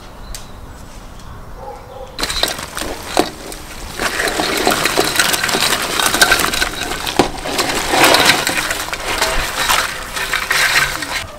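Live crawfish clattering against a white enamel basin and each other as they are tipped into a cauldron of boiling water: a crackling, rattling run of many small clicks that starts about two seconds in and grows louder.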